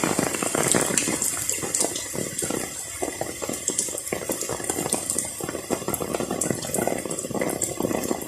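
Rain pouring and splashing: a steady rush of water with a dense, irregular patter of drops.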